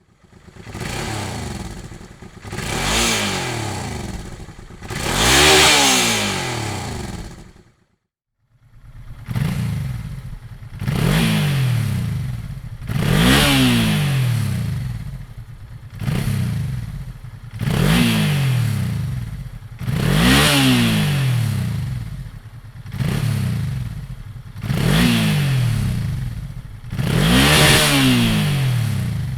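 Honda Transalp XL650V's 647 cc V-twin engine being revved through its exhaust, the pitch rising and falling back with each blip of the throttle. Three revs, then a short break of silence about eight seconds in, then about nine quick revs in a row, roughly one every two seconds.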